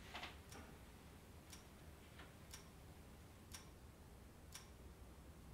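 A clock ticking slowly and evenly, one sharp tick each second, over near silence. A brief soft hiss comes just at the start.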